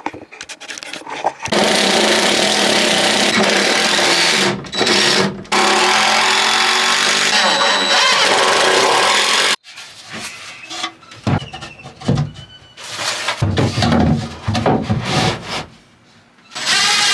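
Power drill running in long stretches, with two short breaks, as it drills and drives screws into wood; it stops suddenly about halfway through, followed by uneven knocks and handling sounds.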